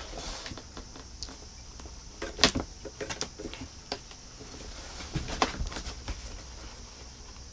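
A cat scuffling inside a cardboard box while batting at a wand toy: scattered knocks, scrapes and rustles of paws and claws against the cardboard, loudest about two and a half seconds in and again past five seconds, over a faint steady high hiss.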